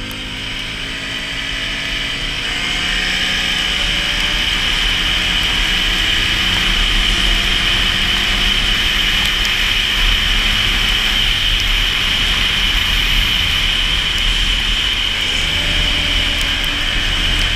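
Can-Am Renegade 570 ATV's V-twin engine pulling away and climbing in pitch over the first few seconds, then running steadily at speed, with wind noise over the microphone. The engine climbs in pitch again near the end.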